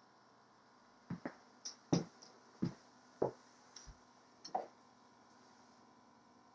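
A run of soft thuds and light knocks, about nine in all, starting about a second in and stopping before five seconds: footsteps on a wooden floor.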